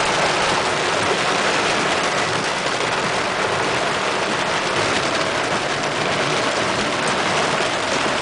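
Vehicle driving on a wet, rain-soaked road: a steady rushing noise of tyres and water over the engine.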